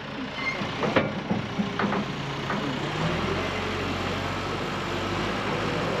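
Sawmill power unit running steadily, with a low steady hum that strengthens about three seconds in and then holds.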